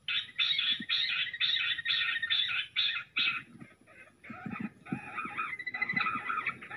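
Jungle bush quail calls played through a speaker as a lure: a rapid run of harsh, repeated notes, about four a second, that starts suddenly and turns into a busier, jumbled chatter after about three seconds.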